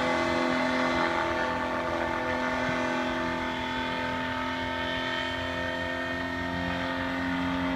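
Paramotor engine and propeller running steadily overhead with an unchanging pitch. It dips slightly in loudness midway and swells again near the end.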